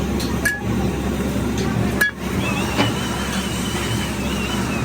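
Steady factory machinery noise with a low hum, broken by a few sharp knocks, and from about halfway a thin wavering high whine.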